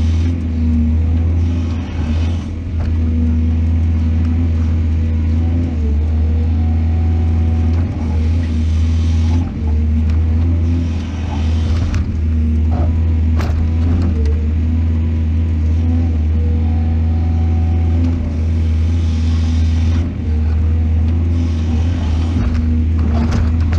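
Excavator's diesel engine running steadily with a deep hum, with a few sharp metallic knocks scattered through it.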